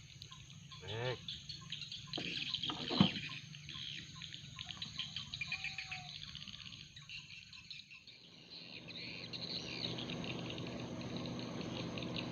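Insects chirping steadily at a high pitch, with a short voice-like sound about a second in and a sharp knock about three seconds in. From about eight seconds a low steady hum joins in.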